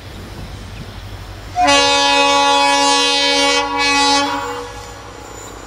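Air horn of an EMD GT46MAC (WDG-4) diesel locomotive sounding one long chord of several notes, about two and a half seconds, over a low rumble. It starts about a second and a half in and dips briefly near its end before cutting off.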